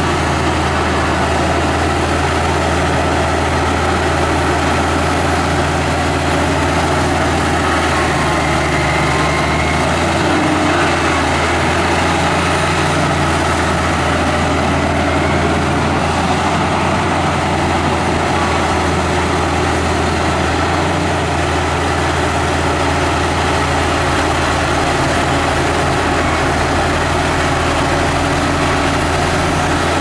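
Heavy diesel engine of earthmoving machinery running with a steady low drone, with small shifts in load now and then.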